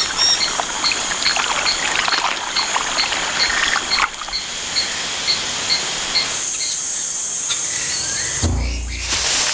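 Tropical rainforest ambience: a steady high-pitched insect drone with a short chirp repeating about twice a second, and scattered crackles and rustles. A low rumble comes in near the end.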